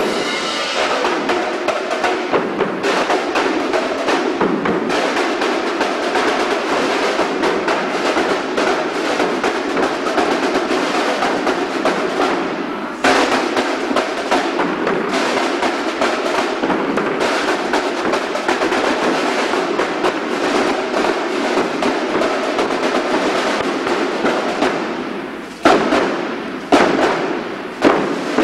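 Cadet marching band of snare drums, bass drum and bell lyres playing a march. About halfway through the playing dips briefly and comes back in with a loud accent. Near the end three loud separate drum hits stand out.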